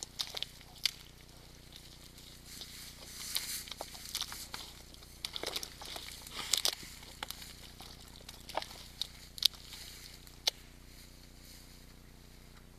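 Red deer moving about on a forest floor of needles and twigs: scattered cracks and rustles, busiest around the middle, over a steady faint hiss.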